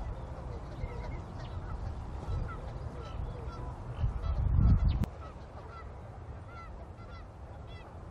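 Birds calling over and over, short honking calls several times a second, over a low rumble that swells for about a second a little past the middle.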